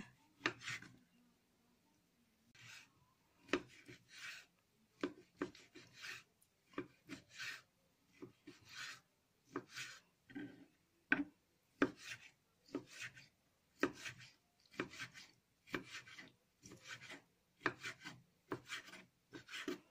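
Kitchen knife cutting cooked ham on a wooden cutting board: a run of short knocks and slicing scrapes as the blade cuts through the meat and meets the board, roughly two strokes a second.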